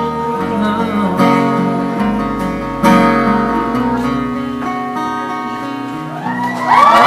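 Closing chords of a live pop song strummed on guitar, each strum ringing out and fading. Near the end the audience breaks into cheering.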